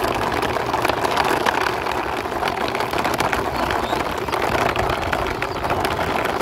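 Hard plastic wheels of a toy quad bike rolling along a rough concrete ledge as it is pushed by hand: a steady gritty rumble with many small clicks.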